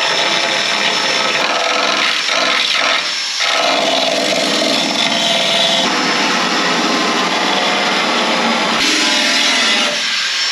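Portable handheld belt sander running and sanding the freshly cut edge of an aluminium rudder skin, cleaning up the edge. A steady, loud sanding noise that shifts as the sander is pressed and moved along the edge, dipping briefly about three seconds in.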